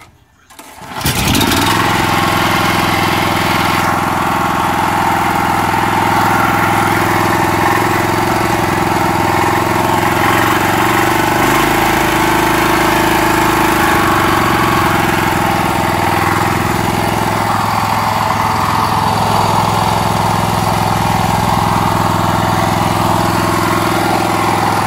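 Freshly rebuilt Honda GX390 13 hp single-cylinder four-stroke engine, running without its air cleaner. It comes in about a second in and then runs steadily at a fast idle, with small changes in speed as the idle setting is adjusted, the idle being set a little too high.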